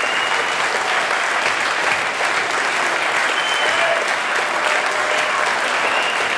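Audience applauding steadily for a choir taking its bow, dense and even clapping from a large crowd.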